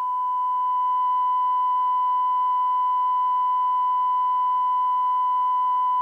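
Steady, unbroken electronic test tone at a single pitch: a 1 kHz line-up tone of the kind recorded on broadcast tapes alongside colour bars.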